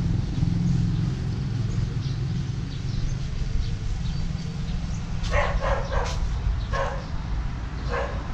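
A dog barking in a run of short barks over the second half, over a steady low rumble.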